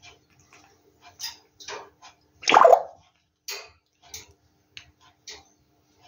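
African grey parrot making a string of short clicks and squeaks, with one louder, longer call about two and a half seconds in.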